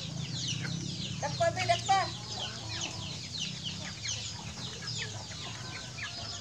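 Hens and young chickens clucking and peeping, with many quick high peeps throughout and a louder call about one and a half seconds in.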